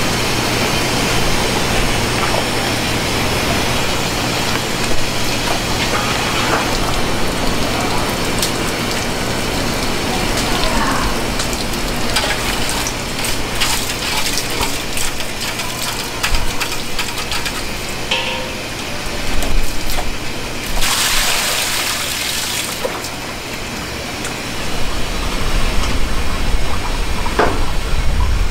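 Soy milk ladled and poured between stainless-steel pots, with clinks of metal utensils against the pots, over a steady machine hum. A brief hiss lasts about two seconds, roughly three-quarters of the way through.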